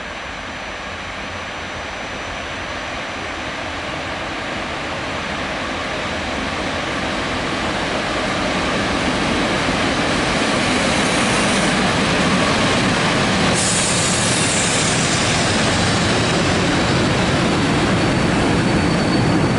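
EP07 electric locomotive hauling a train of passenger coaches into the station: a rolling rumble that grows louder as it approaches, then the coaches running past. A high hiss joins about two-thirds of the way through.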